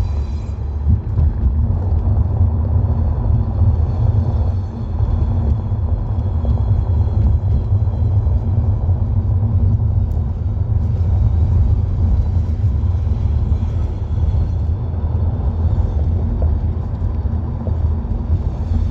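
BMW E90 323i on the move, with a steady low rumble from the left rear that the owner suspects is a worn rear hub bearing.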